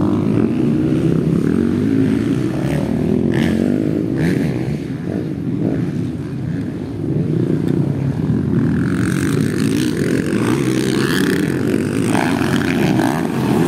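Motocross dirt-bike engines running during a race, a dense steady drone; a higher, rougher engine layer joins about nine seconds in.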